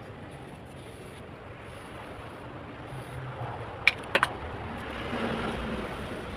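A wooden-handled tool scraping over wet cement mortar on a cast corbel panel, with a few sharp clicks about four seconds in, over a steady background rush.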